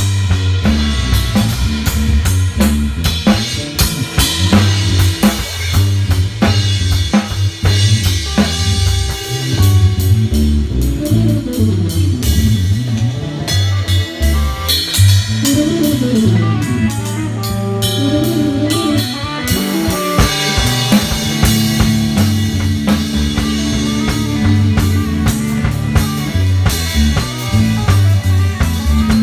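Dub music: a heavy bass line with drum kit and guitar, and several tones sliding up and down in the middle.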